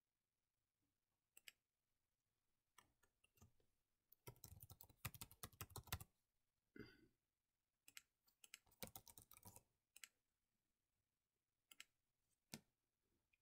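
Faint typing on a computer keyboard: two quick runs of keystrokes, about four seconds in and again about eight seconds in, with single clicks scattered before and after.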